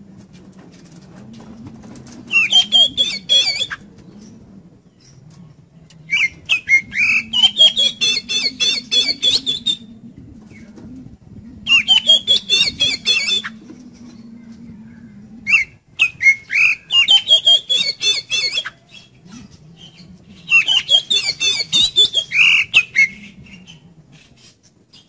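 Oriental magpie-robin (kacer) singing in five loud bursts of fast, varied notes, mixing clicky chatter with whistles, with short pauses between bursts.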